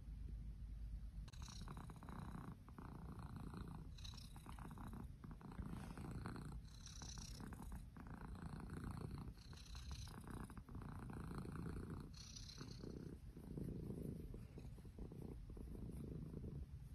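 White domestic cat purring continuously, a low rumble that rises and falls in long pulses.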